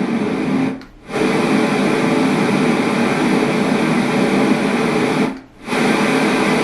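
LectroFan white noise machine playing steady electronic white noise. The sound cuts out briefly twice, about a second in and near the end, as it steps to the next noise setting, each only slightly different in pitch.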